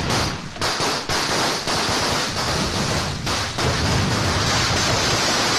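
A string of firecrackers going off in a long, dense, rapid crackle.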